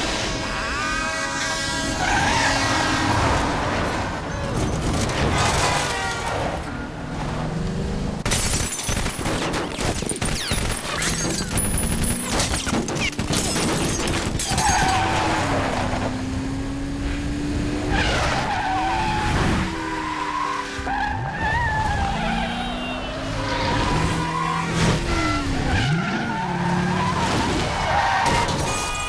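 Car chase: car engines revving hard and tyres squealing and skidding, the squeals rising and falling in pitch, with a run of sharp bangs about a third of the way in.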